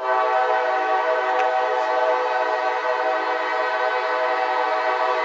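A freight locomotive's air horn sounding one long, steady blast that starts abruptly and lasts about six seconds.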